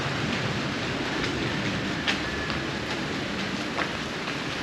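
Steady rain falling on a corrugated metal roof, a continuous hiss with scattered sharp ticks from drops.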